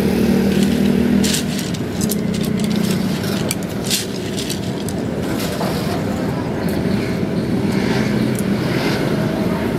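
Steady hum of a motor vehicle engine running nearby, with occasional sharp clicks as thin bamboo sticks are handled and knocked together.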